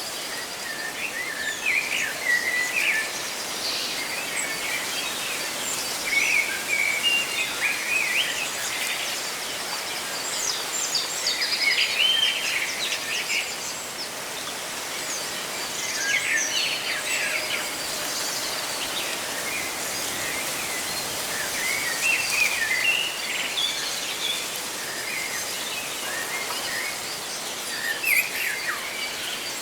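Small birds chirping and twittering in short clusters every few seconds over a steady rustle of leaves in the wind.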